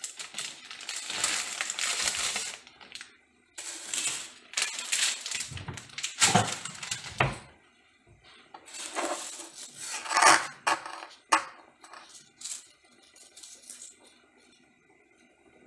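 Irregular clattering, scraping and rustling of dishes and cutlery being handled, in dense bursts for the first few seconds and again about nine to eleven seconds in, thinning to faint scattered clicks near the end.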